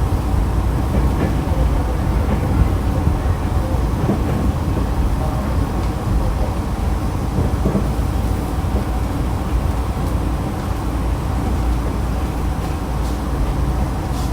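Nankai Kada Line electric train (set 2036F) running, a steady low rumble of wheels and motors with a faint steady hum, as it nears Nirigahama station.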